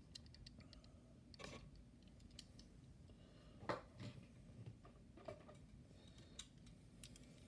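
Near silence with a few faint clicks and taps, the clearest about halfway through: small diecast model cars being handled.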